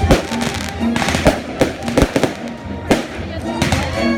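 Fireworks going off, about five sharp bangs spaced roughly a second apart, over music playing.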